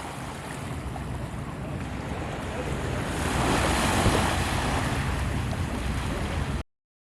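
Wind buffeting the microphone outdoors, a rushing noise with a low rumble that swells to its loudest about four seconds in. The sound cuts off suddenly near the end.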